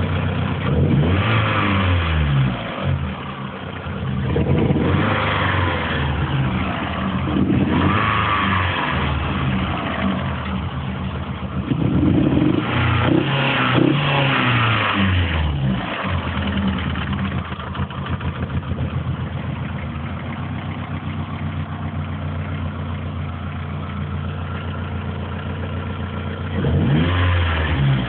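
Opel Tigra's engine revved in a series of short blips and falling back to idle, then idling steadily for about ten seconds before another rev near the end. It is the engine noise that the owner presents as a problem.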